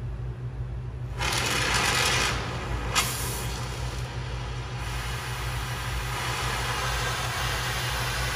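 Gas cutting torch hissing loudly as its gas flow is opened up, with a sharp pop about three seconds in and the hiss stopping near five seconds: the torch flame keeps going out. A steady low hum runs underneath.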